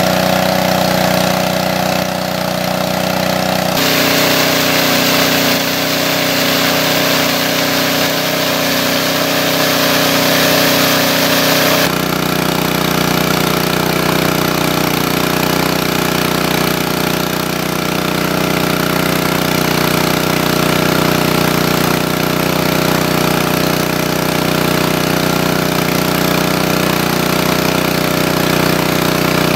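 Small engine-driven water pump running steadily at a constant speed while it pumps water out of the stream. From about 4 to 12 seconds in there is a louder rush of water over the engine note.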